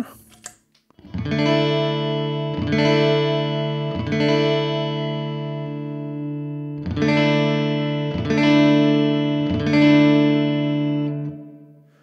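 Electric guitar chord strummed three times and left to ring through a Strymon Flint's 60s reverb, with the colour knob all the way down and the mix high. After a short gap the same chord is strummed three more times through the other Flint, which by ear sounds quite different.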